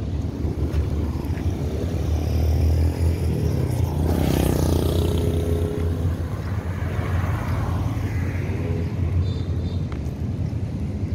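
Roadside traffic: a motor vehicle passes close by about four seconds in, its engine rising and fading, over a steady low rumble.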